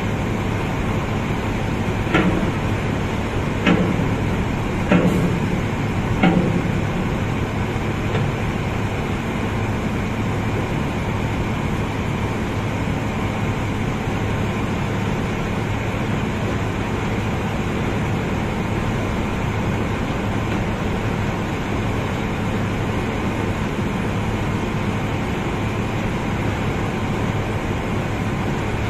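Steady drone of heavy unloading machinery on a sand barge, with a low hum. Four sharp knocks come a second or so apart a couple of seconds in.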